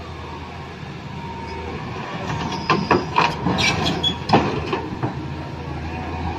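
Plastic toy excavator working its arm and bucket on gravel: a quick run of sharp plastic clicks and gravel rattles in the middle, the loudest just after four seconds in, over a steady low hum.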